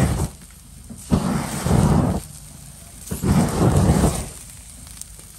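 Flames flaring up through a wire grill basket over a charcoal grill: three low whooshes, each about a second long and about a second apart.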